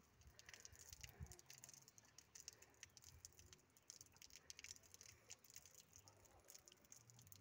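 Faint, irregular pattering of water from a garden hose spraying onto a horse's wet coat.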